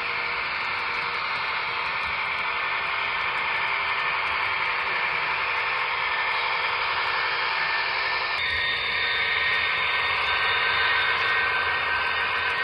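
Recorded diesel engine sound from an HO scale Paragon4 EMD GP35 model locomotive's sound decoder, running steadily and thin and hissy through the model's small speaker. About eight seconds in, a few steady whining tones join it.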